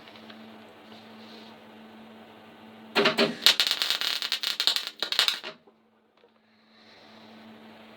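A welding arc crackling in a fast run of sharp crackles for about two and a half seconds as a tack weld goes down on steel car body panel, then cutting off sharply. A steady low hum runs before and after the weld.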